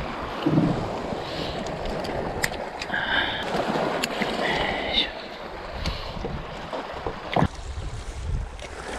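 Wind buffeting the microphone over lapping sea water, with a few light clicks and two brief high squeaks a few seconds in.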